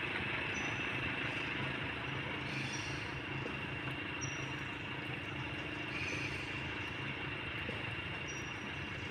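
Steady outdoor background noise with a constant high-pitched hum and a low rumble, and a few faint short chirps scattered through it.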